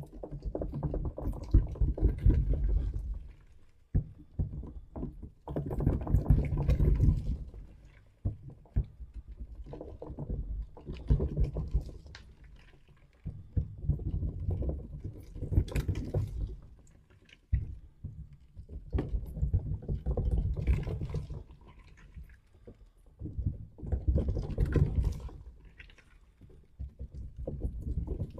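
Soft balloons and balls handled close to the microphone, in repeated bouts of muffled, low rubbing and squishing. Each bout lasts two to three seconds, separated by short pauses and scattered light taps.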